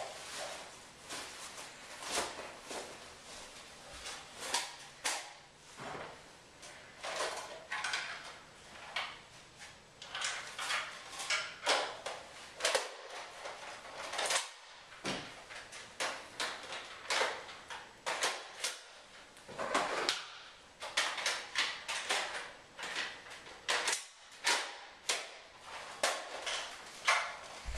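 A long run of short, sharp knocks and clacks, about one or two a second and unevenly spaced.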